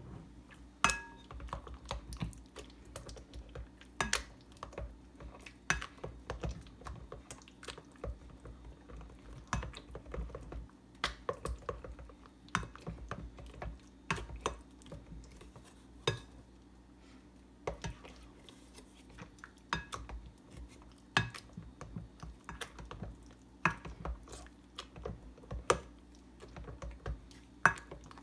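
A masher working banana and butter in a bowl, knocking and clattering against the bowl in irregular sharp strikes, a loud one every second or two with lighter taps between.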